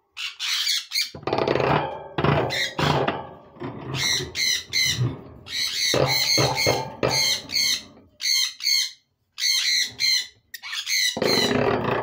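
Lovebirds calling: a run of short, high-pitched squawks and chirps in quick clusters, with a couple of brief pauses.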